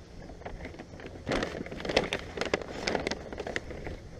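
Large brown paper takeout bag rustling and crinkling as hands rummage inside it, with quick crackles loudest in the middle.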